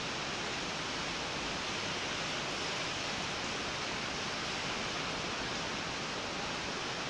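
Heavy monsoon rain falling steadily on wet concrete and the track, an even, unbroken hiss.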